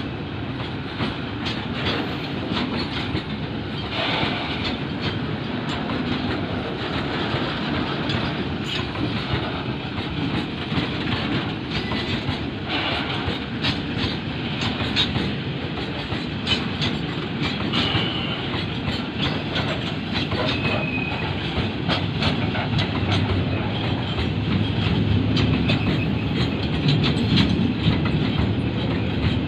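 A string of railway oil tank wagons rolling past close by: a steady rumble with wheels clacking and clicking over the rail joints, growing a little louder near the end.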